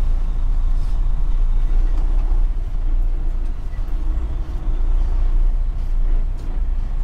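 Semi truck's diesel engine and tyres making a steady low rumble, heard from inside the cab as the truck rolls slowly.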